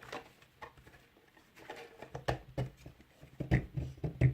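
Plastic clicks and knocks as a fan is pushed into a tight-fitting 3D-printed plastic shroud. The knocks are sparse at first, then come faster and louder from about halfway through.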